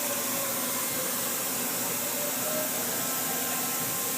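Daewoo Lynx 200A CNC lathe running with a steady hiss and hum, and a faint servo whine as the slide jogs along the Z axis; the machine runs nice and quiet.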